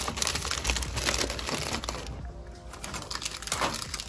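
Plastic snack bags crinkling as they are handled and loaded into a vending machine's spiral coils, mostly in the first half, over background music.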